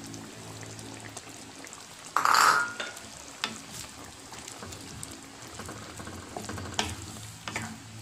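Wooden spatula stirring vegetables in simmering coconut milk in a pan, with a faint steady sizzle underneath. A louder scrape comes about two seconds in, then a few light knocks of the spatula against the pan.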